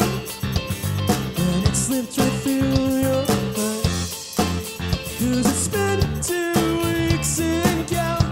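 Rock band playing live: electric guitars, bass and drum kit, with cymbal crashes a few times.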